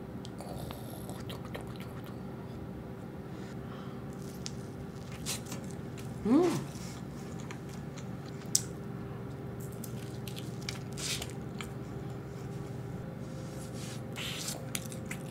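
Squishy eating sounds: cheddar cheese sauce squeezed from a piping bag onto a corn dog, then the corn dog bitten and chewed, with small crunches and smacks. A short hummed "mm" comes about six seconds in. Underneath is the steady hum of an air fryer running.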